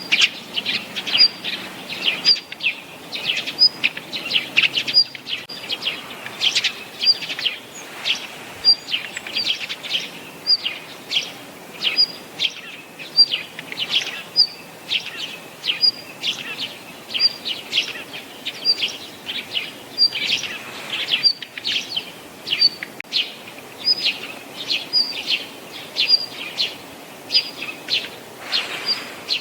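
Small songbirds calling in a steady series of short, high chirps, a little more than one a second, with quicker chirps between them.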